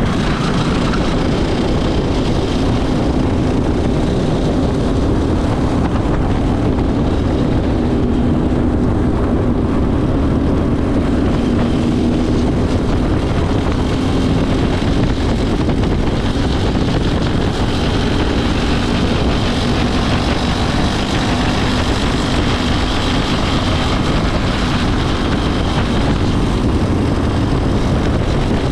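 Racing go-kart's small engine running steadily under load on track, heard from onboard, its pitch wavering slightly up and down.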